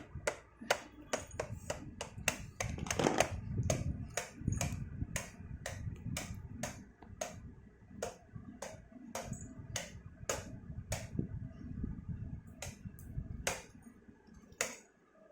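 Sharp, irregular clicks and taps, about two or three a second, from hands and a toy tool working on a toy truck, over a low rumble of handling.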